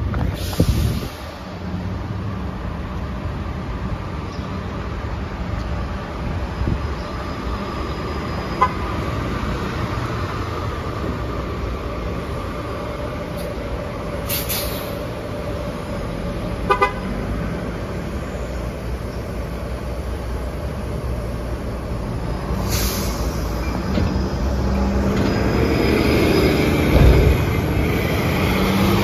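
New Flyer Xcelsior diesel-electric hybrid city buses running and pulling past: a steady engine drone, sharp air-brake hisses about a second in, near the middle and about two-thirds through, and short horn toots twice. The sound grows louder near the end as the articulated bus pulls away.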